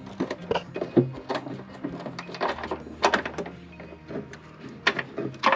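Irregular clicks and knocks of tools and car parts being handled during reassembly work under the hood.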